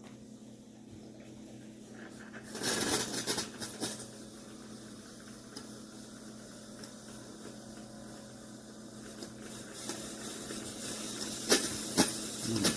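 Chefman single-serve coffee maker brewing with a steady low hum. It spits and hisses steam in a loud burst about two and a half seconds in, then hisses again, louder and with a few clicks, near the end, behaviour the owner takes for a fault.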